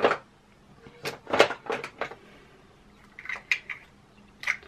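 A string of sharp clicks and light clatter of makeup containers being picked up and set down, loudest about a second and a half in, with a few more near the end.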